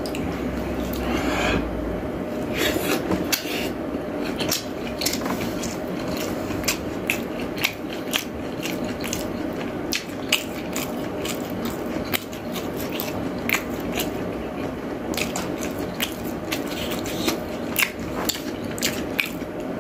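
Wooden chopsticks clicking and scraping against a bowl as food is shoveled into the mouth, with chewing. The clicks come irregularly and often all the way through.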